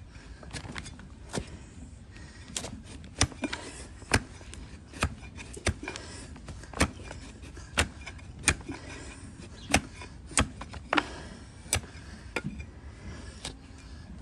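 Donkey hoof being pared with a broad, cleaver-like hoof knife: a series of sharp, crisp slicing cuts, about one a second, as slices of hoof horn come away.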